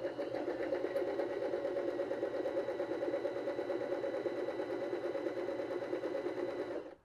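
BabyLock Zest BL15B sewing machine stitching the first side of a four-step buttonhole: a steady, rapid needle rhythm over a thin motor whine, stopping abruptly near the end.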